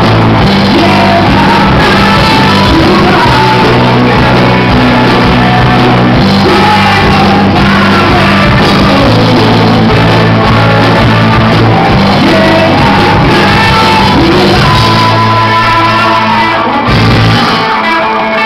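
Live rock band playing: a male singer belting over electric guitars, bass, keyboards and drums, recorded loud and in poor quality. Near the end the low bass notes drop away.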